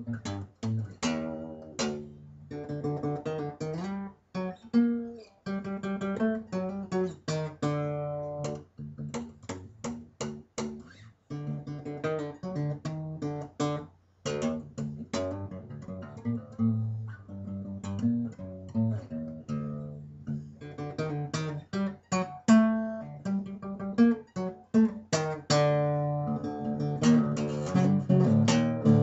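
Acoustic guitar played solo with the fingers, a busy jam of picked and strummed notes with a couple of short breaks about halfway through.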